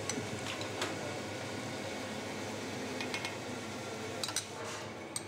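Steady kitchen fan hiss, with a few light clinks of a metal spoon against a small glass bowl and a china plate as sauce is spooned out.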